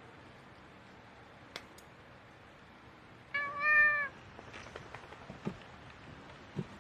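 A cat meows once, a single call of under a second about three seconds in, with a few faint clicks around it.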